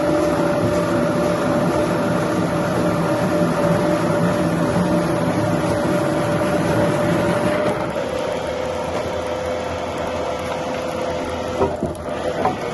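Wood-cutting machinery running with a steady hum whose pitch steps down slightly about eight seconds in, with a few sharp knocks near the end.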